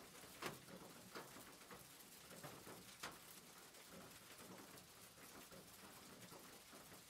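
Faint rain ambience: a soft steady hiss of rain with scattered drops pattering, a few of them louder.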